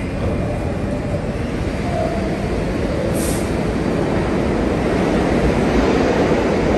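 New York City subway 3 train approaching the station through the tunnel, a steady rumble of wheels on rails that grows louder toward the end. A short hiss of air about three seconds in.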